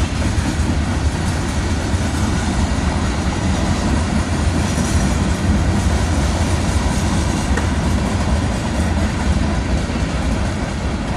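BNSF manifest freight train's cars rolling slowly past, their wheels on the rails making a steady low rumble.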